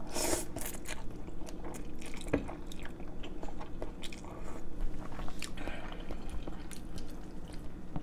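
A person slurping up noodles and chewing close to the microphone, with short hissy slurps and small wet clicks of the mouth.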